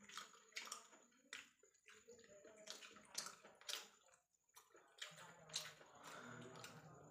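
Quiet eating sounds of two people eating rice and chicken curry with their hands: irregular wet smacks and clicks from chewing and from fingers working the rice, one or two a second.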